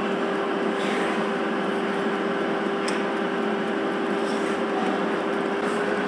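A steady mechanical hum with one held tone, like a motor or fan running, unchanging throughout apart from a slight shift in the tone near the end.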